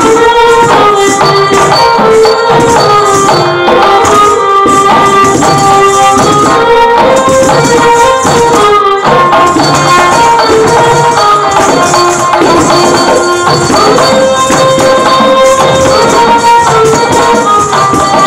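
Kavadi chindhu dance music in raga Anandabhairavi: a melody moving in held notes over a lively, steady folk rhythm of percussion.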